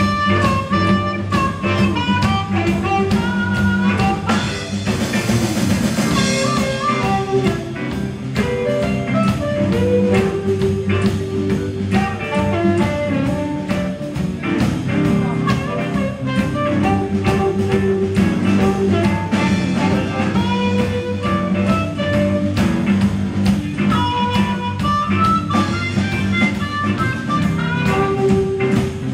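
Live blues band playing: amplified harmonica cupped to a hand-held microphone carries the lead over electric and acoustic guitars and a drum kit.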